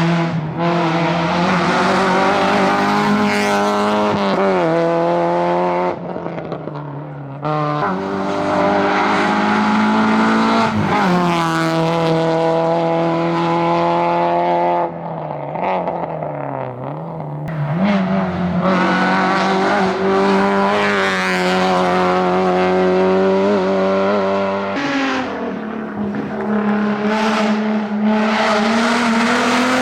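Rally car engine at full throttle, its pitch rising hard and dropping back again and again as it accelerates, changes gear and lifts off for corners. Twice the engine goes quieter for a moment while off the throttle.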